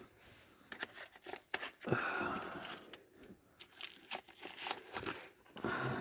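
Packaging being handled and torn open by hand: irregular crinkling, crackling and short tearing noises.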